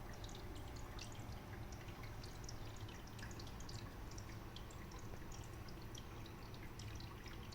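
Water-cooling loop running: a steady low pump hum with irregular trickling and bubbling of coolant.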